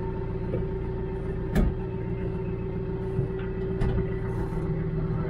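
Branson 5520CH tractor's diesel engine running steadily, heard from inside the closed cab. A sharp clunk about a second and a half in, with lighter knocks near four seconds.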